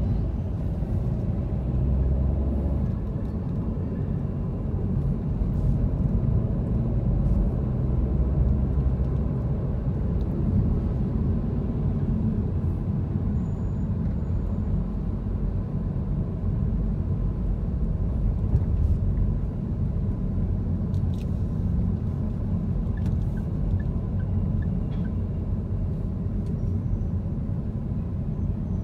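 A car's engine and tyre rumble heard from inside the cabin while driving in slow city traffic: a steady low drone with no sharp events.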